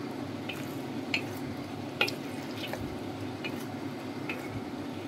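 A wooden spatula stirring pork ribs in a thick sweet and sour sauce in a hot wok, with a steady sizzle and a few sharp clicks of the spatula against the pan, the loudest about two seconds in.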